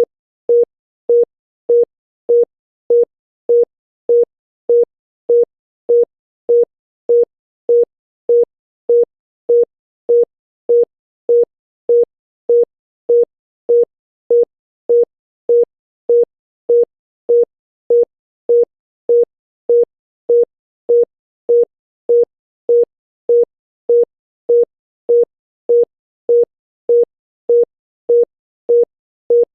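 Historical West German telephone busy tone: a single tone of about 475 Hz in short beeps, 0.125 s on and 0.475 s off, repeating evenly about one and a half times a second, signalling that the called line is busy.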